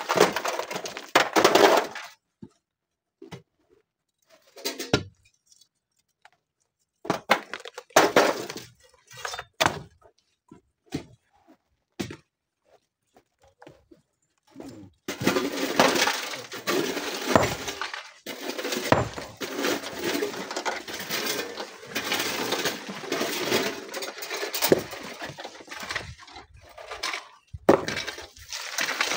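Broken rock chunks clattering and knocking against each other as they are loaded into wheelbarrows. There are scattered separate clunks at first, then near-continuous clatter from about halfway through until near the end.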